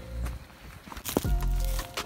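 Background music with held tones and deep bass thumps that drop in pitch.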